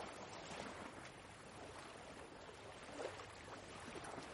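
Faint, steady wash of ocean waves, an even soft hiss.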